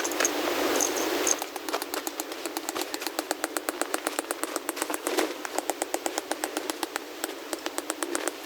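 Rapid, even clicking at about five clicks a second, starting about a second and a half in after a burst of louder rustling noise.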